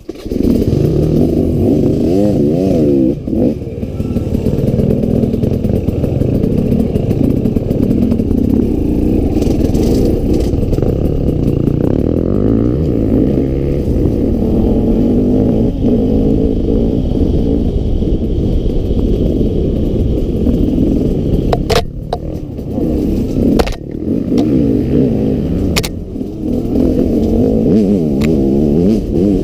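Enduro dirt bike engine heard close up from the bike itself, revving up and down with the throttle as it rides a rough trail. A few sharp knocks from the bike and trail stand out in the last third.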